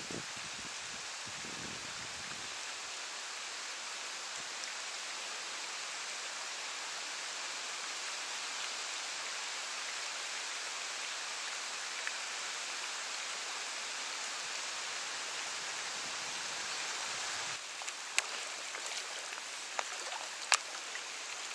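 Steady rain hissing down onto the water, with a few sharp clicks near the end.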